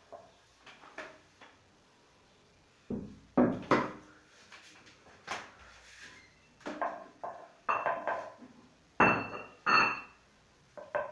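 Irregular knocks and thumps from a person moving about close to the microphone. There are a few quiet taps at first, then loud thuds about three seconds in, scattered smaller knocks, and the loudest pair of thumps near the end.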